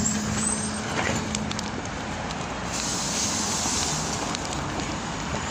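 A BKM-321 trolleybus stands at a stop with its doors open, giving a steady electrical hum that stops about two seconds in, over outdoor street and traffic noise.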